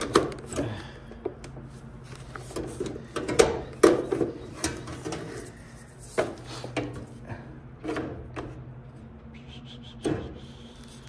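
Scattered knocks, clicks and scraping as dryer panel parts are handled and fitted, over a steady low hum.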